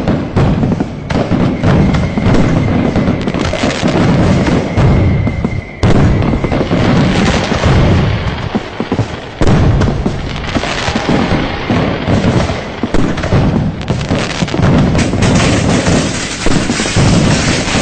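A dense, continuous barrage of firecracker and fireworks bangs, crackling in quick succession without a break. A thin, steady high tone runs under the bangs for the first several seconds.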